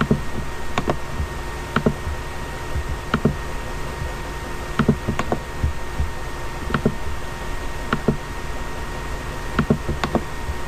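Computer mouse buttons clicking, about a dozen sharp clicks at irregular intervals, as files are selected, right-clicked and deleted. Under the clicks runs a steady hiss with a faint electrical whine.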